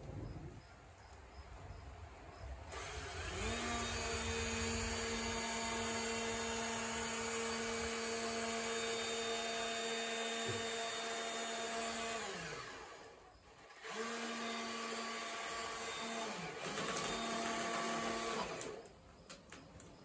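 Small electric motor whining at a steady pitch, run for about nine seconds and then twice more briefly, its pitch winding down each time it is switched off.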